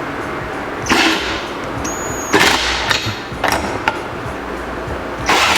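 Metal canopy frame tubes being shifted into position on a tractor roll bar, making four short scraping, rustling noises. A brief high tone sounds about two seconds in.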